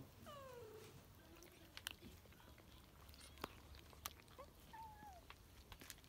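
A cat meows once, the pitch falling, followed by sparse sharp clicks of kittens chewing dry kibble and a short mew about five seconds in.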